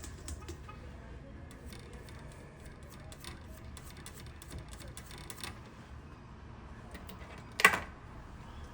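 Light, scattered clicks and taps of small hand tools working on a circuit board during cleaning of the solder pads, with one sharper, louder knock near the end, over a faint low hum.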